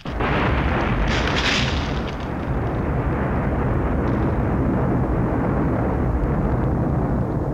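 Film sound effect of an atomic bomb exploding: a sudden loud blast that carries on as a long, steady rumble, with a sharper burst of noise about a second in.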